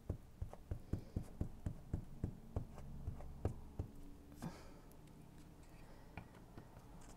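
A glue stick rubbed quickly back and forth over a small piece of paper lying on a book page, giving about four soft knocks a second for nearly four seconds. A brief papery swish follows as the glued piece is lifted.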